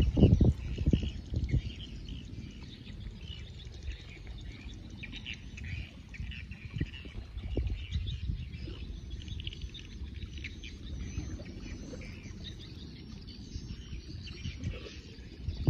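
Many small birds chirping without a break. Low buffeting on the microphone in the first second or so is the loudest part.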